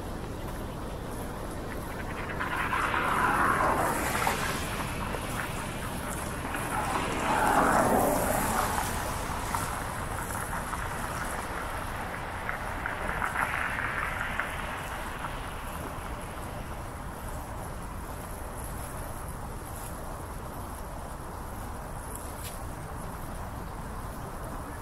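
Steady wind rush from riding a bicycle, with three vehicles swishing past on wet pavement one after another, each swelling and fading over a couple of seconds; the second is the loudest and drops in pitch as it goes by.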